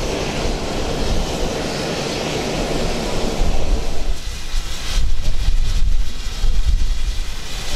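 Steam hissing steadily from a GWR 'Hall' class 4-6-0 steam locomotive standing in steam. About four seconds in, the hiss fades under a gusty low rumble of wind buffeting the microphone.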